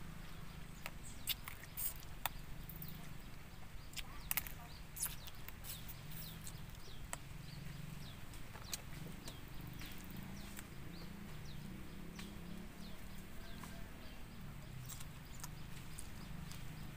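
Close-up eating sounds of a woman eating crab and rice by hand: scattered wet smacks and clicks of chewing. Behind them runs a steady low background hum with faint short chirps now and then.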